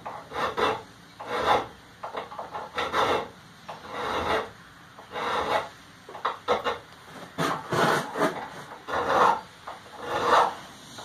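Round chainsaw file rasping on forged metal, cutting small fuller grooves into its corners in irregular back-and-forth strokes, about one or two a second.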